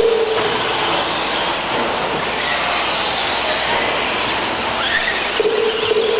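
Electric brushless RC stadium trucks racing on an indoor dirt track: a steady, dense whine and hiss from the trucks' motors and running gear. A held mid-pitched tone rises above it about five and a half seconds in.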